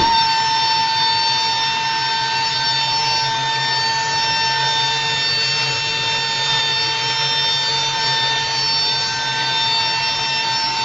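C-130H's electric auxiliary hydraulic pump running with a steady high whine over a hiss while it drives the cargo ramp door down.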